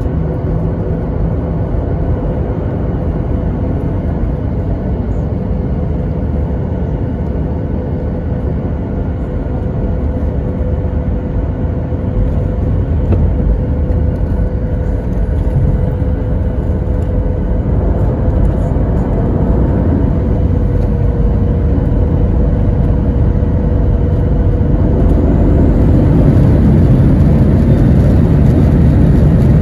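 Jet engine noise of a Southwest Airlines Boeing 737 heard from inside the cabin: a steady rumble with a held whine, growing louder about halfway through and again near the end as the engines power up.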